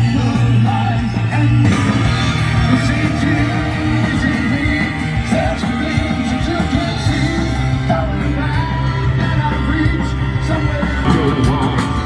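Live rock band playing: electric guitars, bass and drums, with a singer's voice over them.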